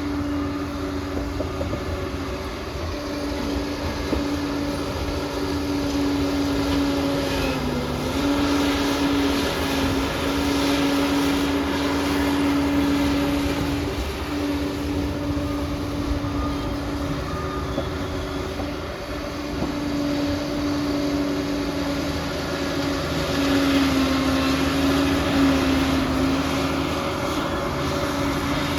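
Diesel engine of a crawler bulldozer running under load with a steady tone over a mechanical clatter; the pitch sags briefly twice as the engine is loaded.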